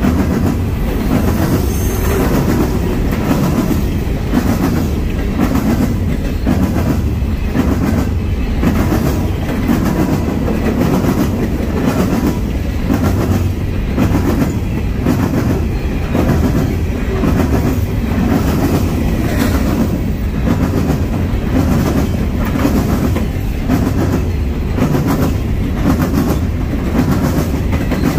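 Freight train cars rolling past: a loud, steady rumble with wheels clicking in an even, repeating rhythm.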